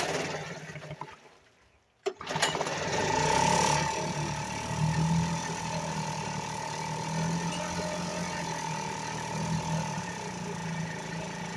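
1975 Sears Gamefisher two-stroke outboard motor winding down almost to silence, then starting again about two seconds in and running steadily with a constant whine, freshly revived after a carburetor rebuild.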